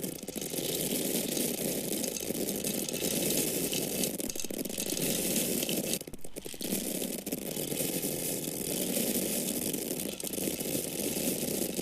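Dry corn kernels pouring and falling in a dense, steady stream of small clicks, with a brief break about six seconds in.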